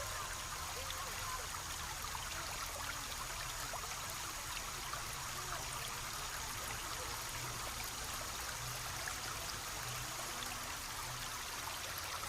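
Small stream trickling and burbling steadily.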